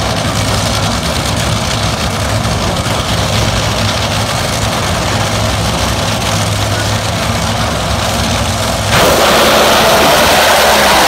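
Two Top Fuel dragsters' supercharged nitro V8 engines idling at the starting line with a steady low rumble. About nine seconds in, the sound jumps suddenly to a much louder, harsher level as they launch at full throttle.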